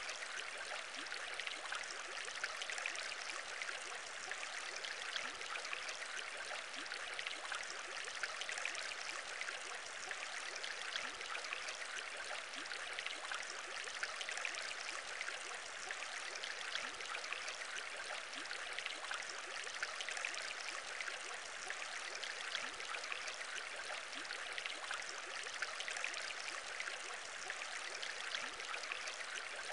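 Aquarium bubbling water, a steady, unbroken fizz of many small bubbles that does not change over the whole stretch.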